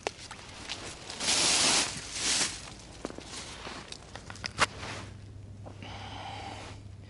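Close rustling and scraping handling noises with a few sharp clicks and knocks, the loudest rustle lasting under a second about a second in.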